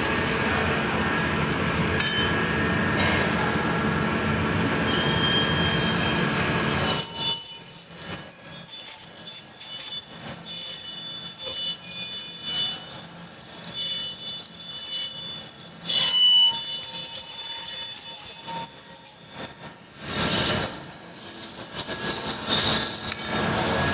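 Manual metal lathe turning a large steel drill bit: the machine runs with a low hum, then about seven seconds in the cutting tool sets up a loud, steady, high-pitched squeal against the metal that holds nearly to the end.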